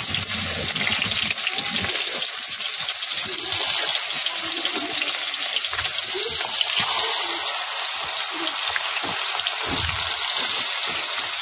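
Turmeric-coated fish pieces frying in hot oil in an iron kadai, a steady sizzle. A few light knocks near the end as the pieces are turned over.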